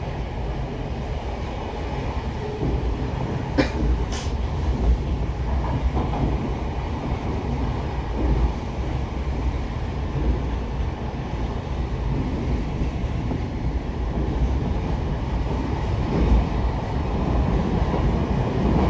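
Tokyo Metro 05 series subway train with permanent-magnet synchronous motors running between stations, heard from inside the car: a steady rumble of wheels on rail, with two sharp clicks about four seconds in and the sound growing a little louder near the end.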